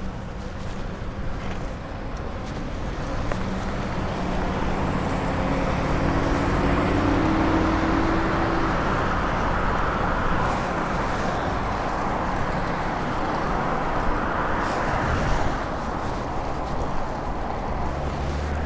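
Road traffic on a busy road heard from a moving bicycle: a steady rush of cars and engines going by, growing louder for a few seconds partway through.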